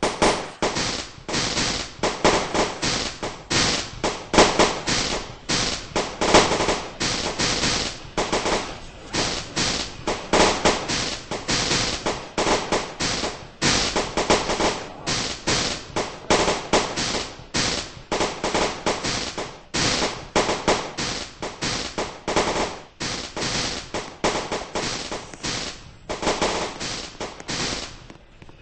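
Firecrackers going off in a rapid, unbroken series of sharp cracks, several a second, for nearly half a minute, stopping abruptly near the end.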